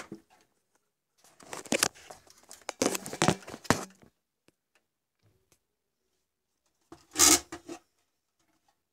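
Open metal UPS casing being handled and shifted on a workbench: a couple of seconds of scraping, rubbing and sharp knocks, then a short, louder scrape about seven seconds in as the unit is turned over.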